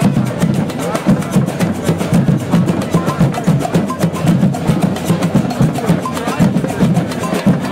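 Percussion music: drums and wood-block-like strikes keeping a quick, steady beat.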